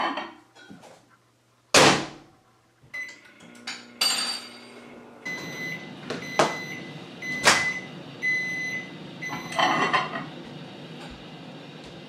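Microwave oven door shut with a bang, a few keypad beeps, then the microwave starting up and running with a steady hum, heating a jar of Kool-Aid dye bath with wool in it.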